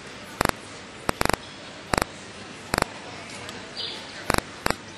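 Sharp clicks, some single and some in quick clusters of two to four, at irregular intervals over a steady background hiss.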